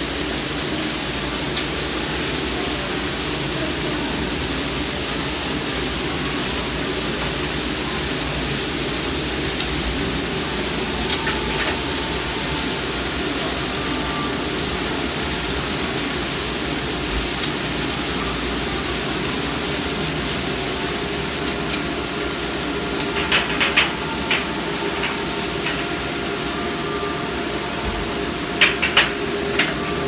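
Hobart conveyor dishwasher running, its wash jets spraying water inside the wash chamber with a steady rushing hiss over a low pump hum. A few sharp clicks come twice near the end.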